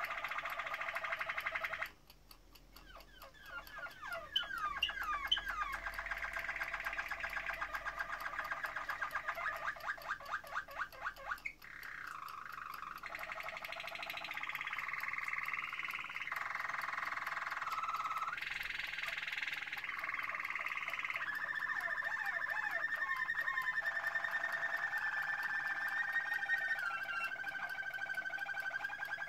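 Caged domestic canary singing a long, continuous song of whistled trills, gliding notes and rapid rolling phrases, with a short pause about two seconds in.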